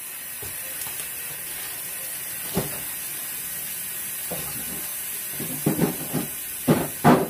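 Kitchen faucet running a steady stream of hot water into a plastic tub in the sink, a constant hiss. A single knock about two and a half seconds in, and a few short knocks and handling sounds near the end.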